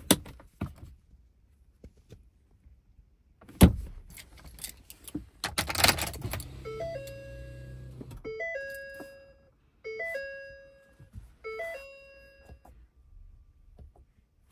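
A click and a heavy thump, a rattle of keys, then the Ford Super Duty's dashboard chime as the ignition comes on: a two-note chime, the second note lower and held, sounding four times every second and a half or so.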